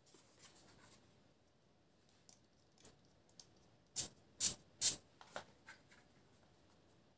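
A small perfume atomiser sprayed three times in quick succession, short hissing puffs about four to five seconds in, with faint handling ticks and rustles before and after.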